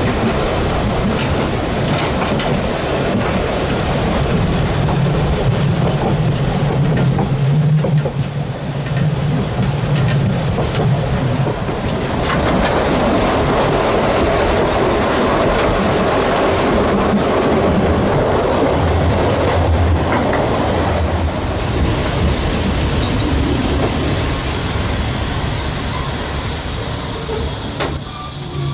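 750 mm narrow-gauge railway carriage rolling along the track: a steady rumble and clatter of wheels on rails with some wheel squeal. It eases off over the last few seconds as the train slows into a halt, and a brief high squeal comes right at the end.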